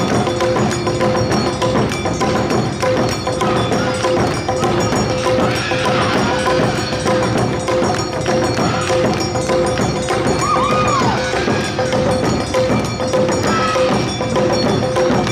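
Awa odori festival music played by a parading group: drums, a clanging hand bell and bamboo flute in the quick, steady dance rhythm, with short sliding flute phrases over the beat.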